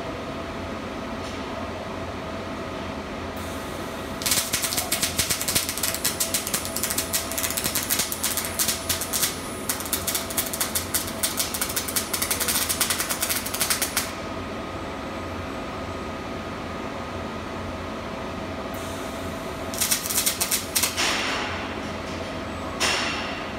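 Robotic MIG welding arc crackling steadily for about ten seconds, starting about four seconds in, then two shorter crackling welds near the end, over the steady hum of the welding cell.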